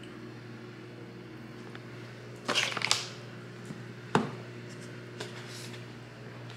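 Food jars and packets being handled on a counter: a brief rustle about two and a half seconds in and a sharp tap a little after four seconds, with a few faint ticks later. A steady low hum runs underneath.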